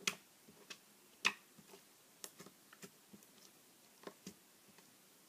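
Homemade glue-and-borax slime being poked and squeezed by fingers on a table, giving off faint, irregular clicks and little ticks. The two strongest clicks come right at the start and about a second in.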